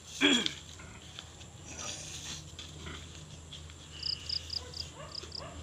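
A chicken gives a short loud squawk just after the start, and hens cluck in short rising calls near the end. An insect chirps in quick high pulses, about five a second, stopping early on and coming back about four seconds in.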